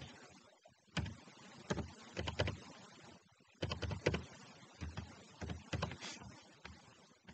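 Computer keyboard keys being typed, with quick clicks in several short, uneven bursts separated by pauses.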